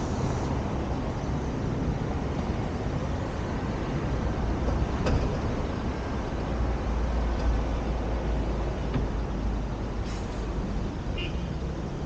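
Steady rumble of road traffic, deepest in the lows and swelling a little in the middle, with a faint click about five seconds in and a brief high chirp near the end.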